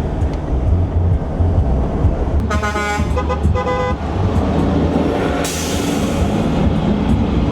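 Steady low rumble of a vehicle on the road. A vehicle horn toots twice in quick succession about two and a half seconds in, and a short rush of hiss follows a couple of seconds later.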